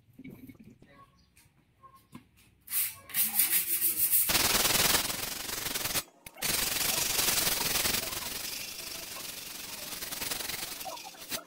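A handheld sharpener scraping along a steel bolo machete blade, sharpening it. The scraping rasps on steadily, with a brief break about six seconds in, and stops suddenly near the end.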